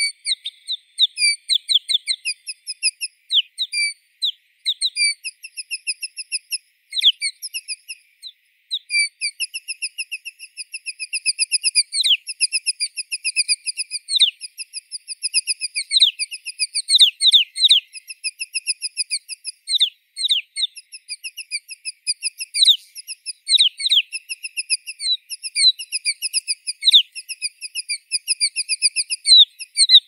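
White-winged snowfinch calling: high-pitched runs of short notes repeated in quick succession, one series after another, with some sharp down-slurred notes mixed in through the middle.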